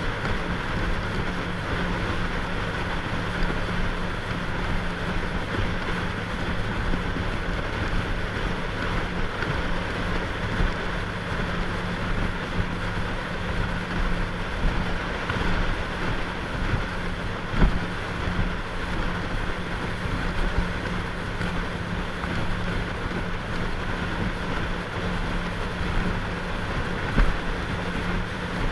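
A motorboat's engine running steadily underway, with wind on the microphone and water rushing past the hull. There are two brief thumps, one past the middle and one near the end.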